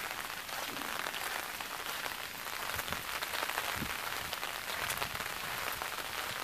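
Steady rain falling, with many small drop ticks close by.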